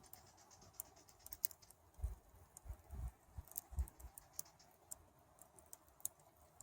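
Faint crackling of a smouldering campfire: scattered sharp ticks at an uneven pace, with a few dull low thumps about two to four seconds in.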